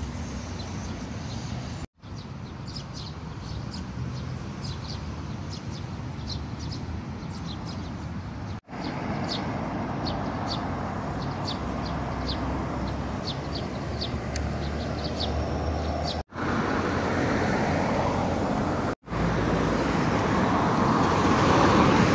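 City street ambience: steady road traffic with small birds chirping over it, the traffic growing louder in the last few seconds. The sound breaks off for an instant several times where the recording jumps between clips.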